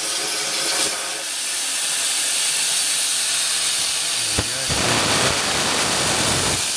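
Small air plasma cutter (CIG Weld Easy Cut 35) torch arc hissing steadily as it pierces and cuts steel plate on a CNC table, with a short tick about four and a half seconds in.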